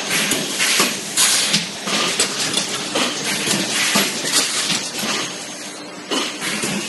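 Disposable cup making machine running: a dense mechanical clatter of knocks, about two a second, with hissing over a faint steady hum.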